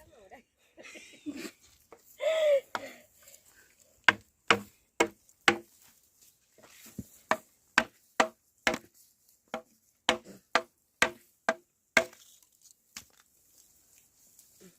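Repeated chopping strikes with a blade or hand tool, about two a second, in two runs with a short pause between. A brief voiced sound comes about two seconds in.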